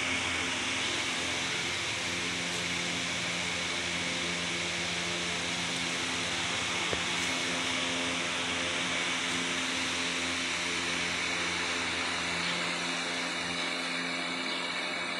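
A steady machine hum with a hiss over it, running evenly without change, like an engine or motor running at a constant speed.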